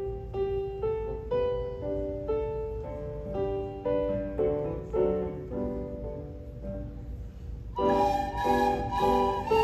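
A piano plays an introduction of separate notes and chords. Near the end, a group of flutophones comes in together, playing a melody over it, noticeably louder and brighter.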